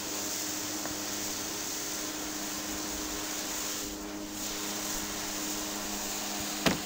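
Steady machine-like hiss with a low hum under it, and one sharp click near the end.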